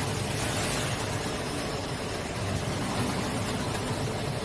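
Banana chips frying line machinery running: a steady low motor hum under an even hiss.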